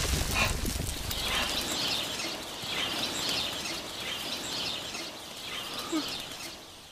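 A flock of birds taking flight, with wings flapping and calls coming in repeated bursts about every half second. A low rumble underneath stops a little under two seconds in.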